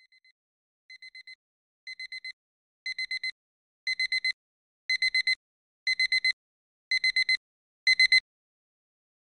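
Digital alarm clock beeping in groups of four quick high-pitched beeps, once a second, each group louder than the last, until it is switched off about eight seconds in.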